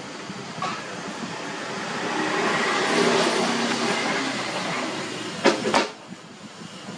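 A passing vehicle's noise swells over a couple of seconds and then fades, followed by two sharp knocks close together near the end.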